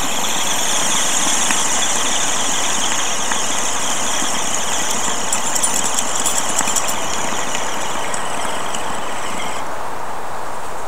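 A long draw through a small glass water rig while taking a dab of cannabis concentrate: a steady, high, airy hiss-whistle of air pulled through the piece, with crackling of the concentrate partway through. The hiss stops shortly before the end, when the draw ends.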